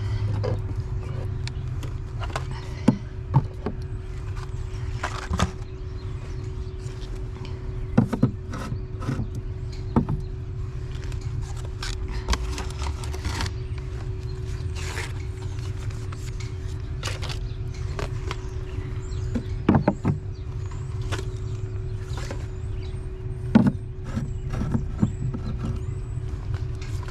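Irregular knocks, taps and rustles of food packages being set on the shelves of a blessing-box pantry, over a steady low hum.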